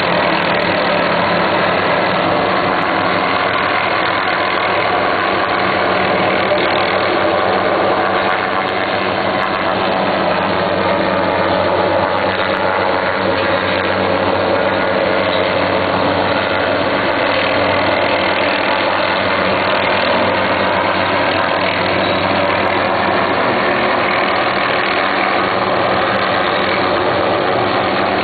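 An engine running steadily and unchanging, with a low hum and a rushing noise over it.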